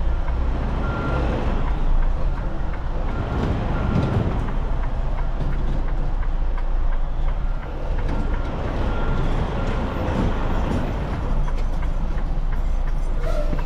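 Semi-truck diesel engine running with a heavy low rumble while a backup alarm sounds short high beeps at intervals.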